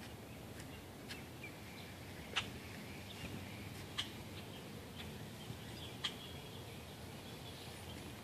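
Faint outdoor ambience with distant birds chirping now and then, and a few sharp ticks.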